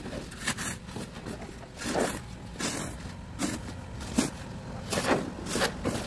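Several snow shovels scraping and pushing snow on a packed-snow road, in irregular strokes about once or twice a second.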